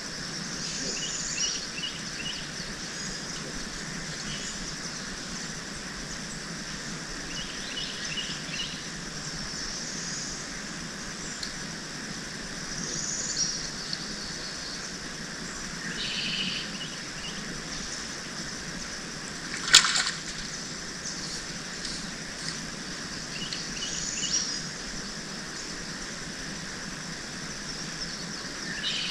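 Swamp ambience: a bird calling in short high chirping phrases every few seconds over a steady hiss. One sharp click about two-thirds of the way through stands out as the loudest sound.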